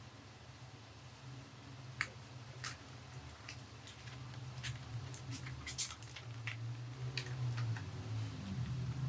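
Irregular sharp clicks and taps of hands working on an HP 250 G5 laptop's hardware, thickest a few seconds in, over a low steady hum that grows louder near the end.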